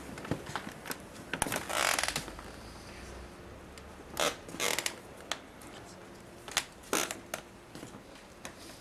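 Scattered clicks and a few short bursts of rustling, like fabric or handling noise close to the microphone.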